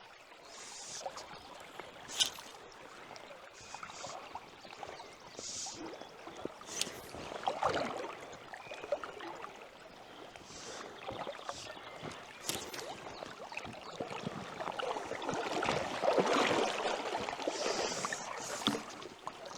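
River water rushing and sloshing, with swells that grow louder toward the end and a few sharp clicks.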